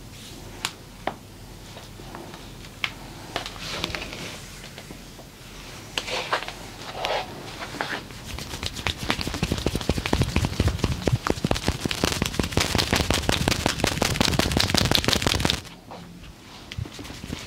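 Hands massaging a body: a few separate sharp clicks and some rustling, then about seven seconds of rapid percussive hand tapping and slapping, which stops suddenly.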